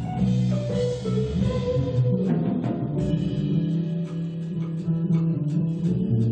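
Live jazz-fusion instrumental played by a trio of electric guitar, electric bass and drum kit, with cymbal wash over the first couple of seconds and steady drum strokes under sustained guitar and bass notes.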